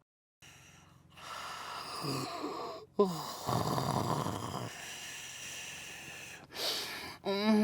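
A man snoring: a run of rasping snores, with a sharp snort about three seconds in and a wavering snore near the end.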